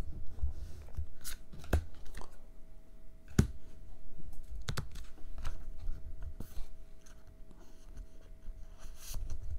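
Magic: The Gathering trading cards being handled and dropped onto piles on a table: irregular light taps, slides and flicks of card stock, with a few sharper clicks.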